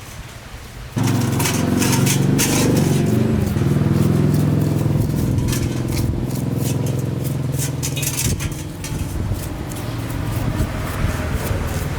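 A motor starts suddenly about a second in and runs steadily at a low pitch, with sharp metallic clicks and clatter over it, then cuts off at the end.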